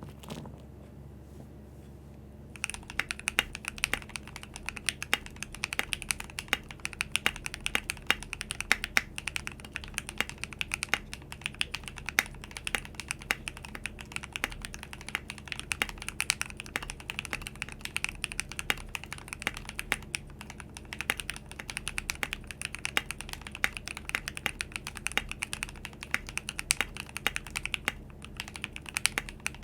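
Fast, continuous typing on a custom 60% mechanical keyboard: lubed and filmed Glorious Lynx linear switches in a frosted acrylic Kbdfans Tofu60 case with an aluminium plate and foam, under PBT Cherry-profile keycaps. A dense stream of crisp keystrokes starts about two and a half seconds in.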